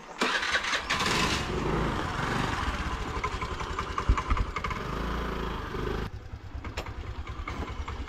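Small motor scooter engine running as the scooter rides up and slows to a stop. The sound gets noticeably quieter about six seconds in.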